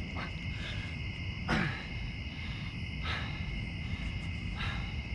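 Steady high-pitched chorus of night insects, with a low rumble under it and a few brief noises, the loudest about a second and a half in.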